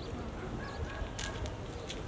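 Outdoor street ambience: birds chirping and calling over a low, uneven rumble, with a couple of faint crisp ticks about a second in.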